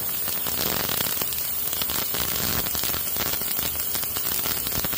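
A parts cleaner running with a steady, even hiss and fine crackle, grungy fishing-reel parts soaking in it.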